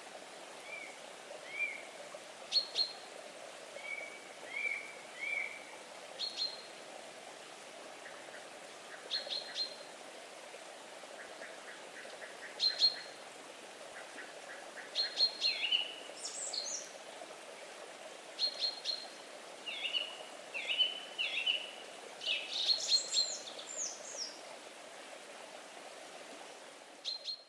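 Birdsong: several small birds chirping and calling in short, quick notes and little groups of notes, some sweeping down in pitch, over a faint steady background noise.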